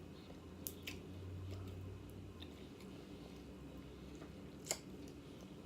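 Faint chewing and mouth sounds of a person eating, with two short sharp clicks, one near the start and one near the end.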